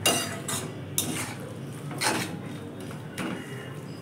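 A metal spatula stirring thick cooked fenugreek greens in a metal pan, scraping against the pan about five times at an uneven pace.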